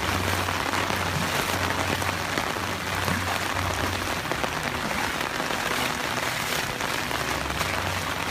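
Heavy downpour falling on wet pavement and standing floodwater, a steady hiss.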